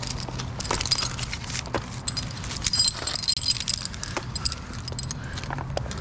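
Metal climbing hardware (carabiners and other gear) jangling and clinking in quick irregular clicks, over a steady low hum.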